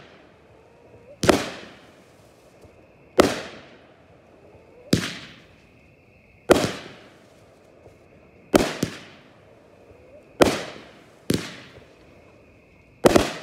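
Aerial fireworks going off: about nine sharp bangs, roughly one every one to two seconds, each trailing off in a rolling echo.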